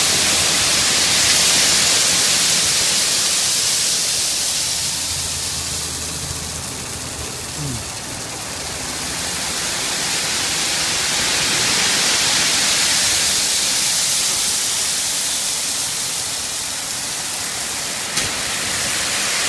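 Three-quarter crushed gravel sliding off the tipped bed of a dump truck onto a pile: a steady rushing hiss like heavy rain, easing a little midway and swelling again, with the truck's engine running low underneath at first and a sharp click near the end.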